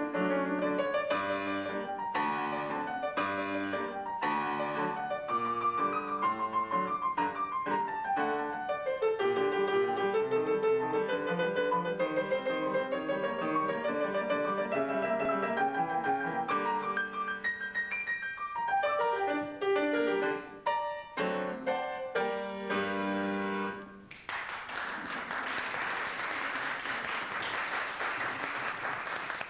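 Piano playing a classical piece, running through faster passages and closing on final chords about 23 seconds in, followed by several seconds of audience applause.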